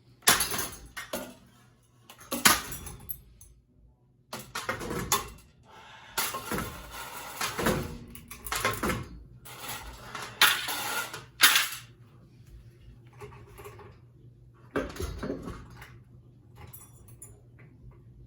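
Ceiling fan being smashed: a series of loud metal bangs and rattling clatter, thickest in the first twelve seconds, with one more blow near the end.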